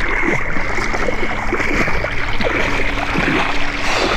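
Lake water sloshing and churning steadily around a person wading in cold water.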